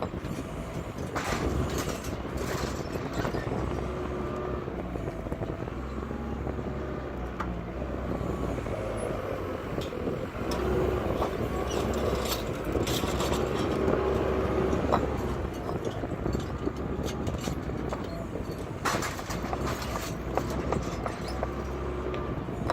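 Diesel machinery running steadily on a paving job, with scattered sharp knocks and clatter over the engine sound.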